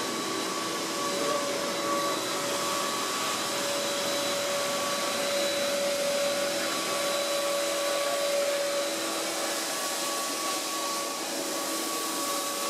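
Driverless Circle Line MRT train pulling into the underground station behind the platform screen doors: a steady whirring hiss with faint, level whining tones.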